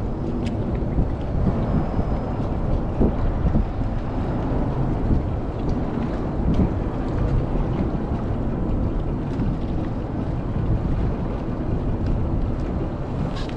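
A small fishing boat under way: its engine and the water run as a steady low noise, with wind rushing over the microphone.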